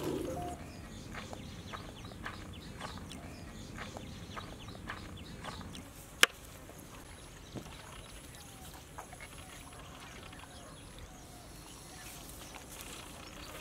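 Soft clicks and taps of hands and a knife and spoon working raw chicken and masala paste, with one sharp metallic clink about six seconds in from a spoon striking a steel plate. Faint short bird calls in the background.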